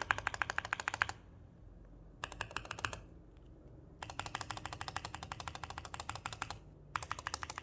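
Glorious Panda tactile mechanical keyboard switch with a Cherry-profile keycap, not mounted in a keyboard, pressed rapidly. It gives several runs of fast clicking, separated by short pauses.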